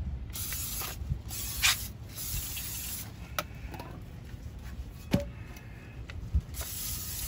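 Aerosol can of brake cleaner spraying through its straw into a trailer brake drum's hub: three bursts of hiss, the last near the end, with a couple of light knocks in between.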